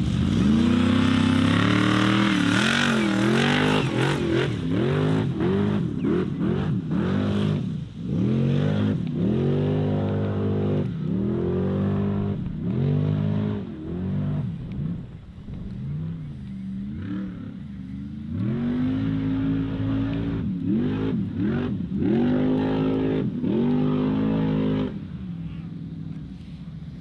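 Formula Offroad buggy's V8 engine revving hard in repeated throttle bursts, its pitch climbing and dropping again and again as the car drives the off-road track. It is quieter and steadier near the end.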